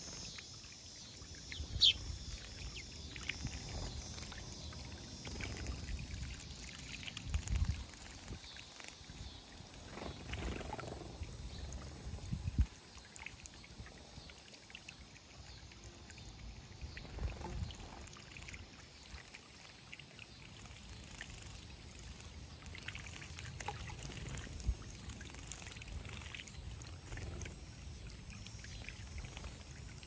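Faint outdoor ambience of irregular low rumbles and a few small knocks, with one short high bird chirp about two seconds in.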